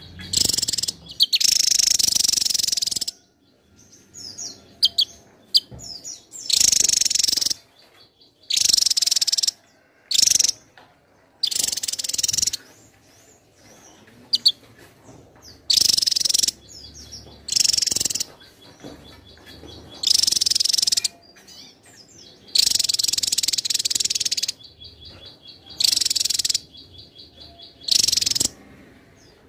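Javan tesia singing: about a dozen loud, high, rapid song bursts, each half a second to two seconds long, separated by short pauses. A faint, even, high-pitched pulsing runs underneath in the gaps.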